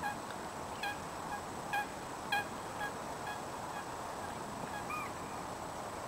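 Geese honking: a string of short honks about every half second in the first half, then a single longer call that rises and falls near the end.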